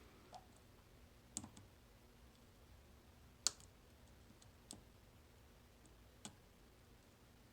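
A few faint, sharp metallic clicks, spaced irregularly, from a pick working the pins of a 9-pin dimple lock under tension. The loudest click comes about halfway through.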